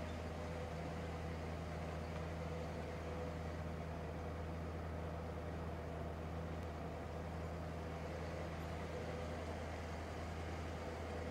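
Steady, even hum of a vehicle's engine and road noise, heard from inside a car moving slowly.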